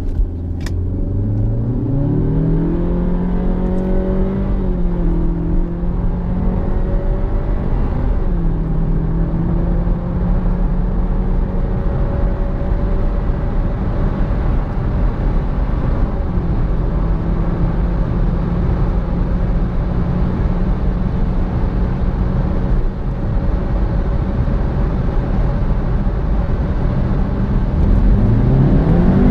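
Turbocharged Honda car engine running under way, heard from inside the cabin over steady road noise. The engine note climbs as the car accelerates in the first couple of seconds, then holds steady while cruising, dips briefly about eight seconds in, and climbs again near the end.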